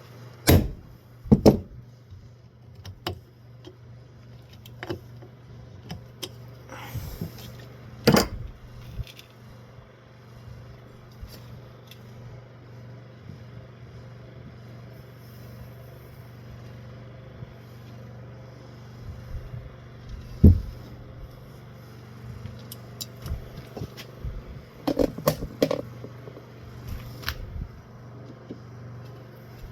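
Metal ceiling-fan parts being handled and screwed together: scattered clicks, clunks and scrapes, the loudest knocks about 8 and 20 seconds in, with a cluster of clicks near the end. A steady low hum from a running electric fan sits underneath.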